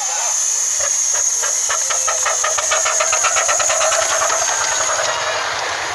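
Miniature steam locomotive 'Waldenburg' pulling away: a steady hiss of steam, with exhaust beats that start about a second in and come quicker as it gathers speed. The hiss fades near the end.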